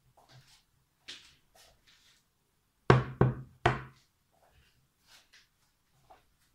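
A plate set down on a wooden table, knocking three times in quick succession about three seconds in, with faint clicks and rustles of handling around it.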